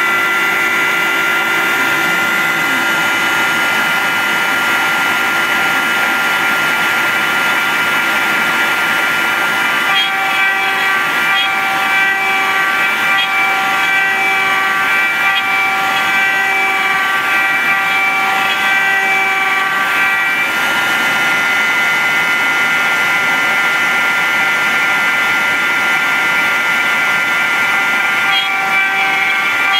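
CNC router spindle running with a steady high whine while a small end mill cuts into a wooden board. The tone shifts slightly about a third and two-thirds of the way through.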